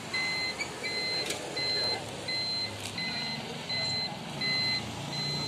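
An electronic warning beeper sounding a steady, evenly paced beep about every three quarters of a second, around eight beeps in all, over a low engine hum that grows in the second half. Two sharp clicks land about a second and three seconds in.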